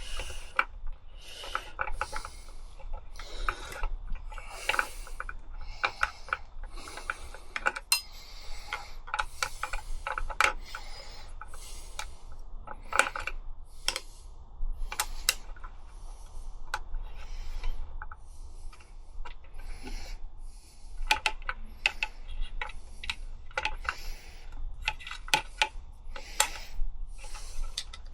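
Spanner working a small nut loose on a motorcycle indicator mount: repeated short metallic clicks and scrapes as the tool is turned, repositioned and turned again.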